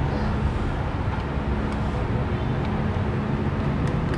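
A steady low mechanical rumble, with a few faint clicks near the end.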